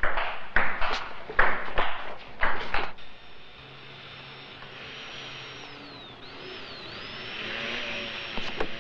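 Table-tennis rally: the ball knocks back and forth about twice a second for the first three seconds, then stops. A steady hiss follows, with a faint high whine that dips in pitch twice.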